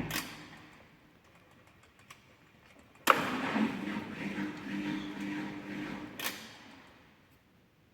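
AEG Öko Lavamat 4100 washing machine drum motor starting with a click and running briefly at low speed, turning the drum for about three seconds between quiet pauses, then stopping with another click.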